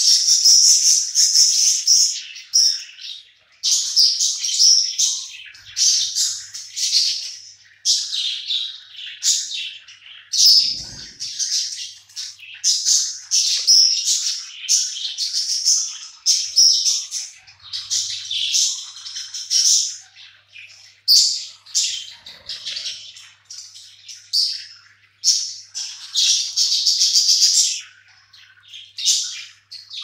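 A flock of budgerigars chirping and warbling non-stop, their short, high calls overlapping in a constant chatter.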